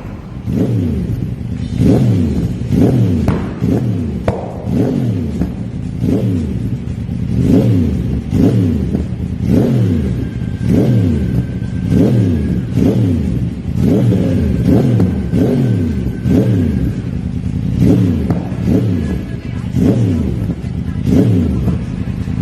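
Yamaha YZF-R1's crossplane inline-four, through an Akrapovič exhaust, revved in quick blips over and over, about one a second, each rise in pitch falling straight back to idle. Sharp pops and crackles come from the exhaust as the revs drop.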